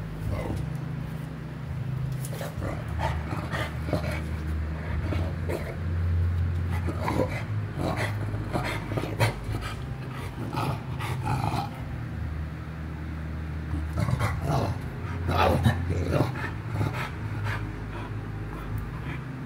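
Chow chow making runs of short huffing and grumbling sounds with panting, over a steady low hum.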